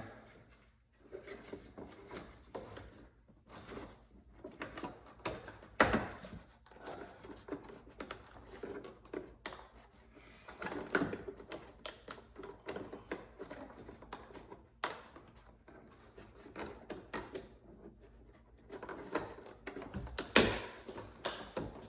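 Irregular plastic clicks, knocks and handling noises as a door tweeter and its trim piece are fitted back into a car door. Two louder knocks come about six seconds in and near the end.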